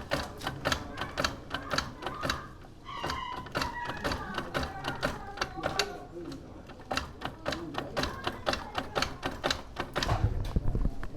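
Rapid, uneven mechanical clicking, several clicks a second, from hand work on a KTM Duke 390 motorcycle whose engine is being turned over by hand through the rear wheel; a low rumble joins in near the end.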